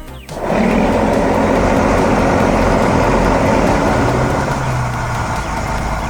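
A heavy vehicle engine sound effect cuts in suddenly and runs loud and steady. A low hum joins about four seconds in.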